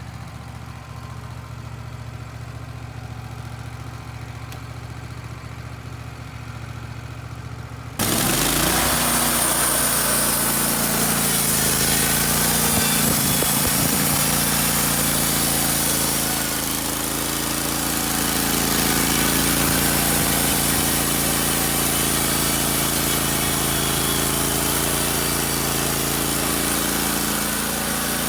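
Wood-Mizer LT15 Wide band sawmill's engine running quietly. About eight seconds in, the sound jumps suddenly to the loud engine and band blade sawing through a pine log, which goes on steadily.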